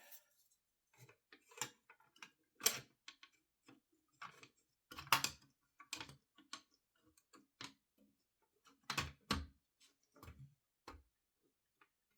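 Irregular light clicks and knocks of small graphics-card parts being handled on a bench, the loudest about three, five and nine seconds in.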